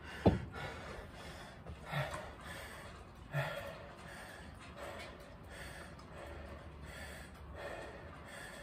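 A man breathing hard and gasping between high-intensity exercise intervals, with a heavy breath every second or two that weakens towards the end. About a quarter second in comes one sharp knock, the loudest sound, as a plastic water cup is set down.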